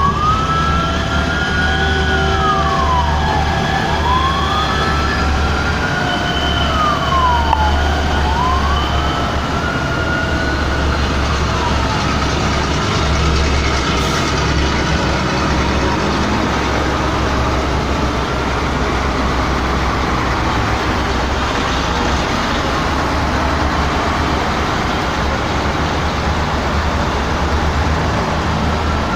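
Emergency vehicle sirens wailing, at least two at once, each rising and falling over about four seconds, over a steady low engine rumble from the vehicle column. The wails blur and grow less distinct after about twelve seconds.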